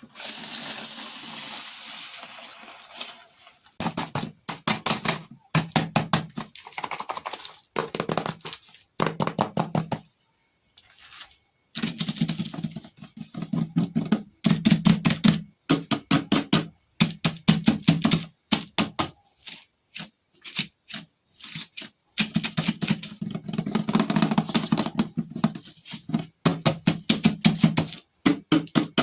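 A rustling crinkle at first, then bursts of rapid tapping or clicking on a hollow object, about ten knocks a second with short pauses between bursts.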